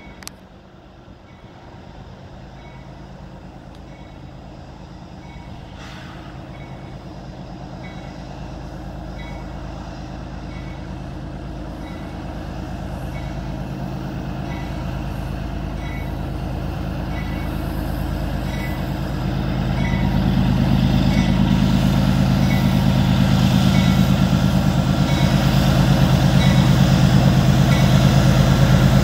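Union Pacific diesel locomotive approaching at the head of a double-stack freight train, its engine growing steadily louder and much louder from about two-thirds of the way through. A warning bell dings steadily, about once a second.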